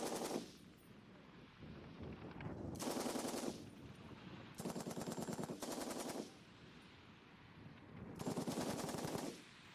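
M60 7.62 mm machine gun firing short bursts on full automatic: five bursts of under a second each, two of them in quick succession near the middle, with pauses of one to two seconds between.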